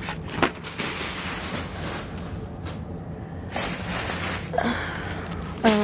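Plastic packaging and a plastic shopping bag rustling and crinkling as party supplies are handled, with a few light knocks.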